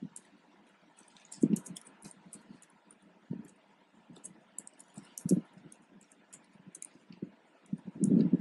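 Typing on a computer keyboard: irregular keystroke clicks, with a few heavier knocks, the longest near the end.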